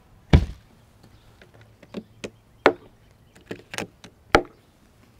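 Lid of a hard plastic cooler shutting with one loud thud, then a series of sharp clicks and knocks as its front latches are pulled down and fastened.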